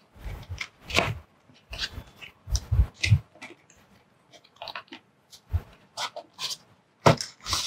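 Cardboard packaging being handled and opened by hand: irregular rustles, scrapes and soft thumps, with a burst of crackling near the end.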